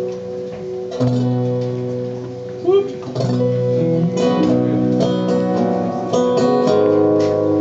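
Acoustic guitar strumming chords, each struck about a second or two apart and left to ring, on a borrowed guitar the player is still getting right before the song.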